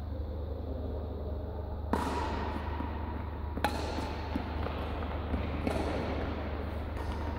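Badminton rackets hitting a shuttlecock during a rally: a sharp crack about two seconds in and another a second and a half later, each ringing on in the hall, then a few fainter hits, over a steady low hum.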